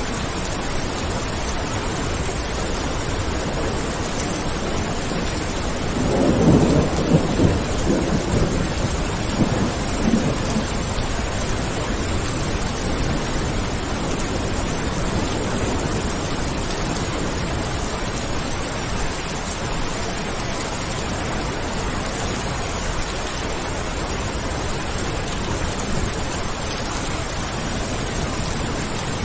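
Steady heavy rain with a rolling thunder rumble that swells about six seconds in and fades over the next few seconds.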